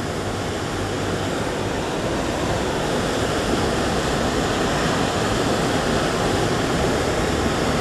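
Ruidoso River in flood, its water rushing steadily with an even, unbroken noise.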